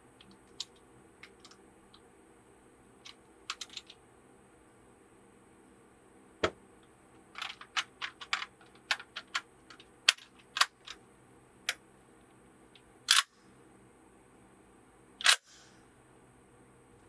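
Sharp mechanical clicks and snaps at irregular intervals, coming thicker in the second half, with two louder snaps near the end, over a faint steady hum.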